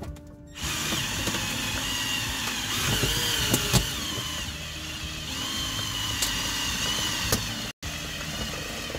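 Cordless drill driving the spindle of a WRD OrangeBat windshield cut-out tool, starting about half a second in and running steadily with a wavering whine as it winds in the cutting fiber line. Two sharp knocks come around the middle, and the sound cuts out for an instant near the end.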